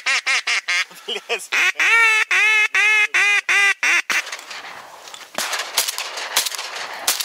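A hunter's hand-blown duck call giving a long string of quacks, first quick and close together, then slightly longer and evenly spaced, stopping about four seconds in. After that comes wind noise on the microphone with a few sharp clicks.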